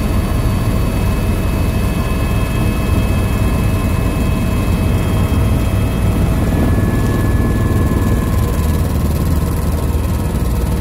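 Aircraft engine and airflow noise heard inside the cabin in flight: a steady, loud low drone with a few faint steady whining tones above it.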